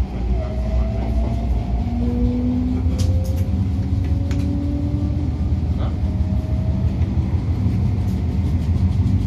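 MTR A-Train electric multiple unit heard from inside the car: the traction motors and inverters whine in tones that climb in steps as the train picks up speed, over a steady low rumble of wheels on rail, with a few sharp clicks about three to four seconds in.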